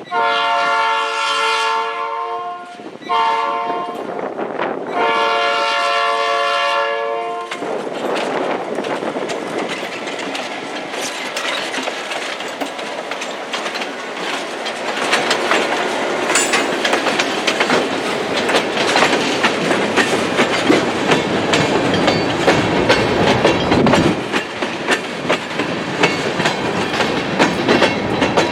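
GP9 locomotive's Nathan P5 air horn, badly fouled, sounding three blasts, long, short, long, for a crossing. Then the locomotive and tank cars roll past, the wheels clicking over the rail joints and growing louder near the end.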